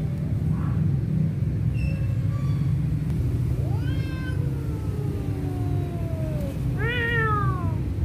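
Cats yowling in a standoff: faint short calls about two seconds in, then a long drawn-out yowl that slides down in pitch over a couple of seconds, and a shorter falling yowl near the end. These are the warning cries of two cats squaring off over territory. A steady low rumble runs underneath.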